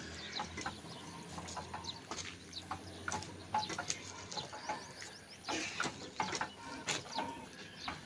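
Scattered light clicks and clanks from an old 22 hp diesel engine as its flywheel is turned over by hand, with birds chirping throughout. The engine has not fired yet.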